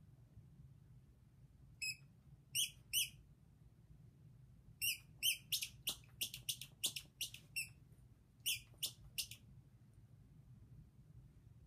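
Red rubber squeaky toy squeaking as a small dog bites and chews it: short high squeaks in bursts, one about two seconds in, then a pair, then a quick run of about ten, then three more near the end.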